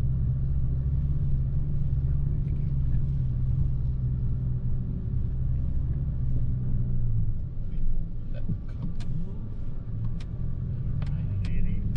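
Ford Ranger Raptor's 2.0 L bi-turbo diesel running with a steady low rumble that drops off about seven seconds in, with a few sharp clicks near the end.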